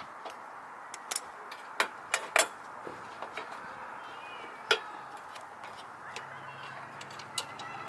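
Scattered sharp clicks and knocks of headlight parts being handled and fitted back together, a few seconds apart, over a steady background hiss.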